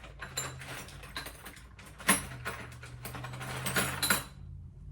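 Small hardware clicking and rattling as it is handled while a hook is picked out, with a sharp clack about two seconds in and another just before four seconds.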